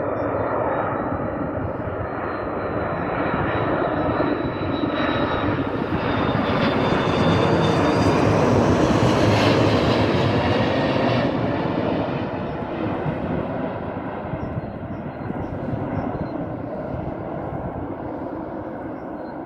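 Airbus A330 twin-engine jet on final approach with its landing gear down, passing low overhead. The engine and airflow noise swells to its loudest about nine seconds in, then fades as the aircraft moves away. A high whine drops a little in pitch as it passes.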